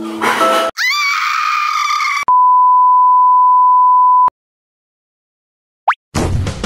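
A single steady, high electronic beep lasting about two seconds, the loudest sound here. Just before it comes a short edited-in sound effect that swoops up in pitch and settles. Near the end a brief rising chirp leads into music.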